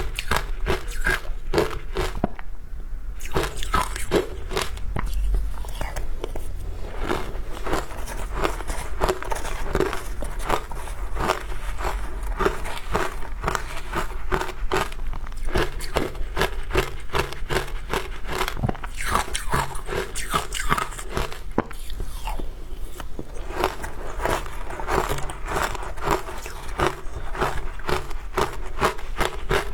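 Close-miked biting and crunching of frozen matcha ice, with chewing of passion fruit. The bites crackle in quick irregular strokes, several a second, throughout.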